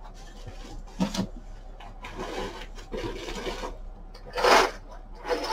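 Rustling and rubbing of packages being handled while someone rummages in a box for the next item, with a brief knock about a second in and a louder scrape about four and a half seconds in.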